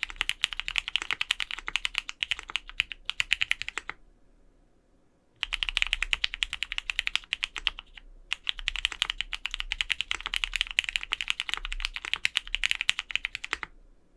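Fast typing on a Vega custom mechanical keyboard with lubed, broken-in Cherry Hyperglide black linear switches, GMK keycaps and an aluminium plate, with no case foam in the case. The keystrokes come in quick runs, with a pause of about a second and a half near four seconds in, a brief break near eight seconds, and a stop near the end.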